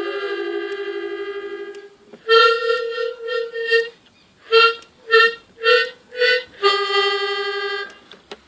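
Free-reed gaita playing: a long held note with a quick wavering pulse stops about two seconds in. Then come a run of short repeated notes with pauses between them and, near the end, another long held note.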